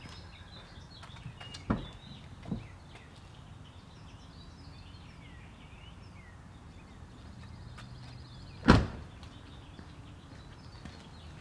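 The cab door of a Dodge Ram Power Wagon pickup slams shut about nine seconds in, by far the loudest sound. Two lighter thumps come about two seconds in, and birds chirp faintly throughout.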